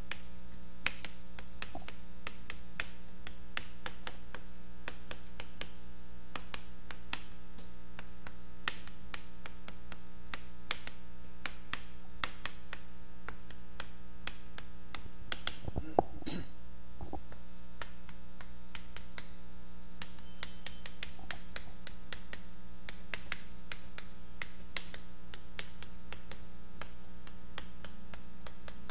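Chalk tapping and scratching on a blackboard as characters are written: many short, sharp ticks throughout, with one louder knock about halfway through. A steady electrical hum runs underneath.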